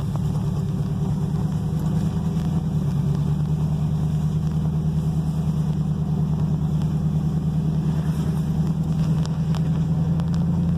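1999 Ford F-150's engine running steadily under way with a low, even hum, picking up a little over the first few seconds.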